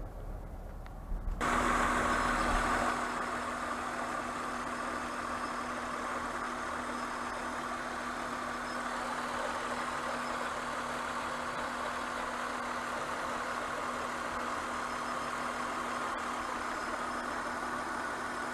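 Honda Pilot's V6 engine running at idle, with the misfire being diagnosed. Its sound comes in abruptly about a second and a half in, is louder for a moment, then settles to a steady idle with one constant hum.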